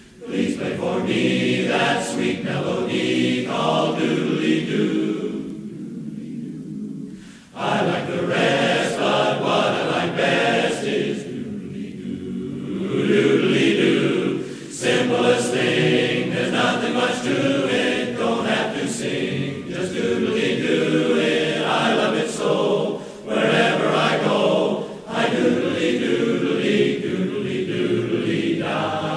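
Men's barbershop chorus singing a cappella in close harmony, holding sustained chords in long phrases with brief breaks between them.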